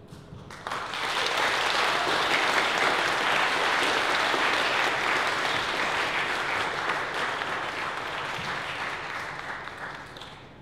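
Audience applause that starts about a second in, holds steady and dies away near the end.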